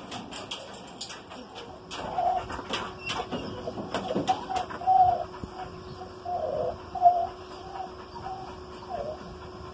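A dove cooing, a run of short low notes repeated over several seconds.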